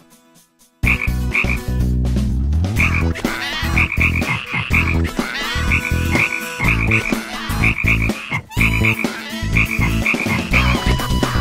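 Cartoon frog croaking over and over, deep croaks starting about a second in after a brief near-silence.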